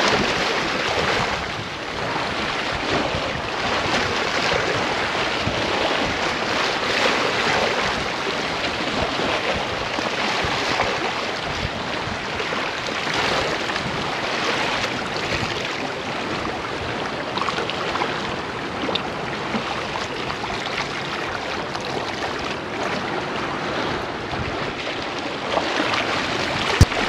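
Waves washing in and wind buffeting the microphone, a steady rushing noise, with one sharp click near the end.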